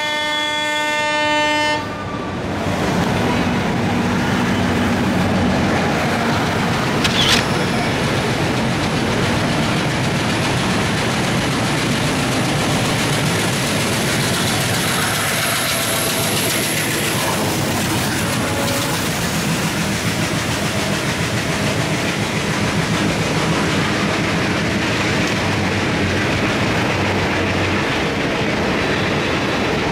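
A train horn sounds for about two seconds and cuts off. Then two trains cross on adjacent tracks: steady rolling noise and clickety-clack of coaches on the rails, with a red diesel locomotive passing beneath.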